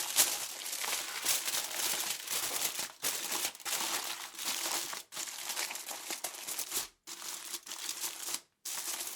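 Aluminium foil being crumpled and crinkled in the hands: dense, crisp crackling in several bouts with short breaks between them.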